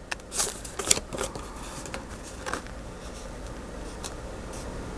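Paper being handled and shuffled: a few short rustles in the first second or so and one more about midway, over a faint steady background hum.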